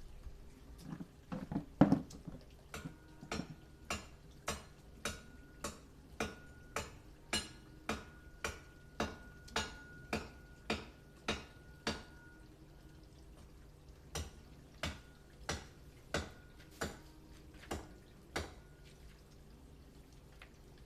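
Machete hacking at a tree branch: sharp, even blows about two a second for roughly ten seconds. After a short pause a few more blows come, then they stop.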